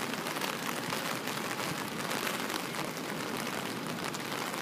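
Steady rain falling, an even hiss and patter of drops with no let-up.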